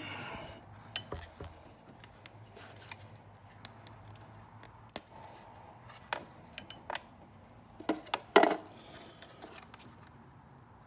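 Scattered small clicks, clinks and knocks of hand tools and wire being handled during wire splicing, with a louder cluster about eight seconds in, over a faint steady hum.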